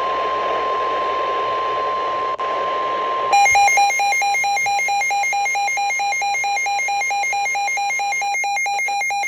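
Weather radio alert: a steady single-pitch warning alarm tone, the NOAA Weather Radio 1050 Hz warning tone, over radio hiss, which about three seconds in gives way to a rapidly pulsing electronic beeping alarm that signals an incoming warning.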